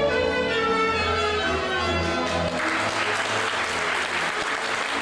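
Folk string band led by fiddle playing a dance tune, which stops about two and a half seconds in. Applause follows.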